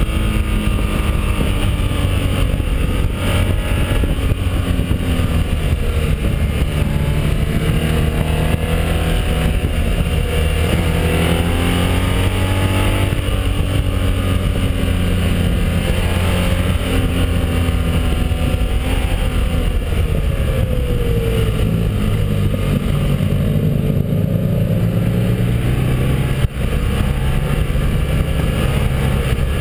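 BMW R1200 boxer-twin motorcycle engine running under way, its revs rising and falling through the bends, with steady wind rush over the microphone. A single sharp knock near the end.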